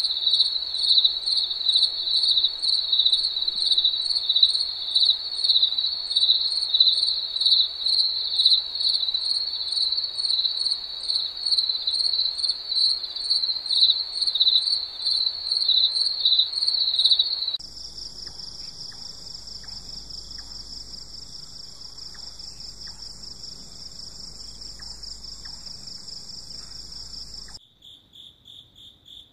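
Night insect chorus of crickets or katydids: a loud, high, fast-pulsing trill, which switches abruptly about two-thirds of the way through to a quieter, higher, steadier buzz, and again near the end to a fainter pulsing chorus.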